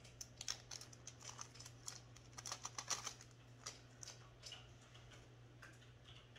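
Faint light clicks and crinkling from handling a small clear plastic bag and the stainless steel multiplacer tip taken out of it, mostly in the first half, over a low steady hum.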